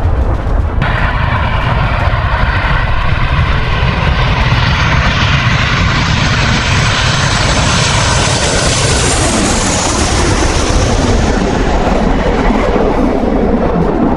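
Jet fighter engine running loud: a steady low rumble with a high hiss that builds to a peak about ten seconds in and then eases off.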